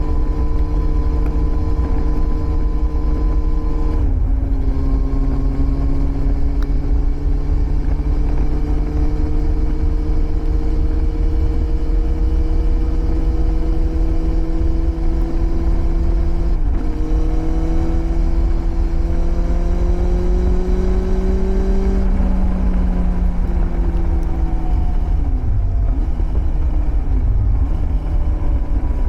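Yamaha 1000 Fazer's carburetted inline-four through a Scorpion exhaust, under way and pulling through the gears. The engine note climbs slowly, drops sharply at upshifts about four seconds in and again about seventeen seconds in, then falls away off the throttle with a couple of short dips. A steady low wind rumble runs underneath.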